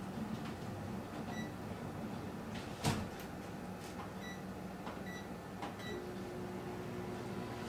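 Microwave oven being set going: the door shuts with a clunk about three seconds in, then short keypad beeps, and the oven starts running with a steady hum near the end, melting butter.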